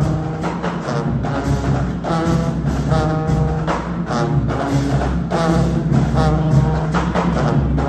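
Marching band playing: brass and sousaphones over a drum line, a short horn figure repeating about once a second above a steady low bass line.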